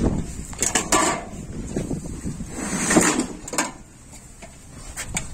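Knocks and clanks of shoes on the rungs of a metal ladder as a person climbs up into a truck's trailer, a few sharp hits spread through, the loudest about three seconds in.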